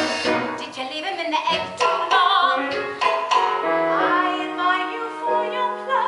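Stage musical song: singing with vibrato over instrumental accompaniment, settling into held notes near the end.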